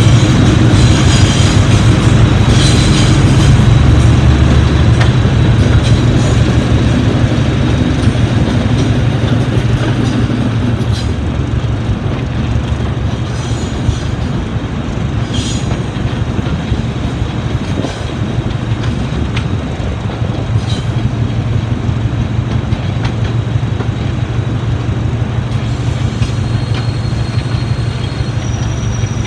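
Class 73 diesel locomotive under way hauling a train uphill, its engine working steadily, with wheel and rail noise and a few sharp clicks. The sound is louder at first inside a tunnel and eases off a few seconds later once the train is out in the open.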